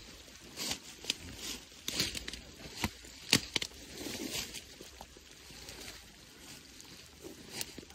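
Footsteps pushing through wet brush and tall dry grass: irregular rustling and swishing of stems against clothing, broken by sharp clicks and snaps.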